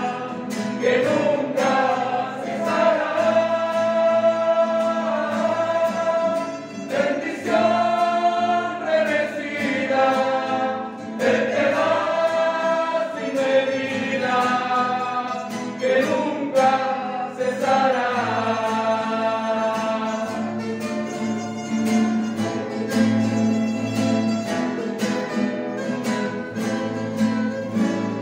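Mixed choir singing a hymn in unison and harmony, accompanied by strummed acoustic guitars and a mandolin.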